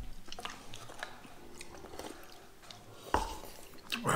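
People eating cup ramen: small wet chewing, slurping and sipping sounds as broth is drunk from paper cups. A sharp knock about three seconds in, as a cup is set on the table, and a louder breathy sound at the very end.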